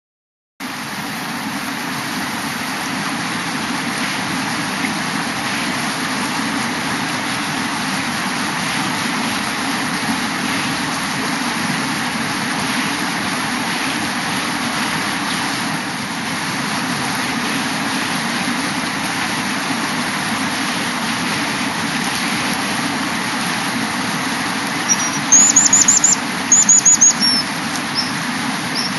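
Steady rush of river water swirling around rocks. Near the end, a baby bird gives a quick run of short, high-pitched chirps.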